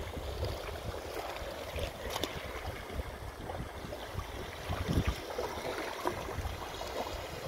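Wind gusting on the microphone over small waves washing onto the shore, with the strongest gust about five seconds in.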